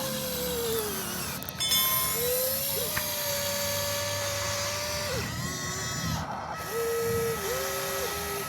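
Small electric gear motors of a Huina radio-controlled construction toy whining in runs of a few seconds, the pitch gliding up as each run starts and down as it stops: one tails off in the first second, a longer one runs from about two to five seconds in, and short stepped runs come near the end.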